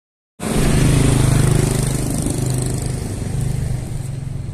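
Small motorcycle engine running close by, a steady drone that starts abruptly about half a second in and eases slightly, over street noise.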